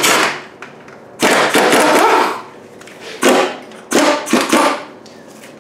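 A ratchet wrench clicking in several short bursts, roughly a second apart, while undoing the nut on a Ford 9N tractor's steering drag link. The metal clatter is loud and sharp.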